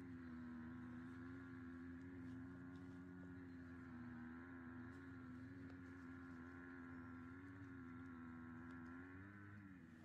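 Faint, steady engine hum with a slightly wavering pitch that dips briefly near the end.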